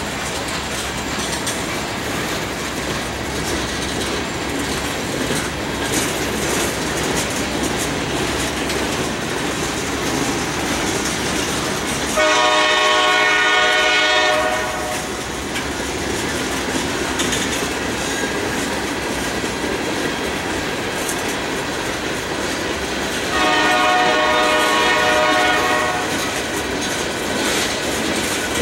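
Freight cars rolling past with a steady rumble and clatter of wheels on rail. A locomotive horn sounds two long blasts over it, the first about twelve seconds in and the second about twenty-three seconds in, each lasting two to three seconds.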